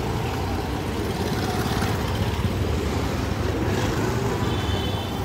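Street traffic of motorcycles and scooters passing, a steady engine rumble and traffic noise. A brief faint high beep comes near the end.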